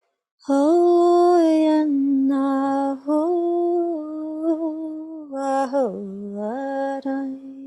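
A woman's voice singing long, slow wordless notes in an improvised vocalisation of a turtle's slowness. The held notes step down and back up, dipping lowest a little after halfway.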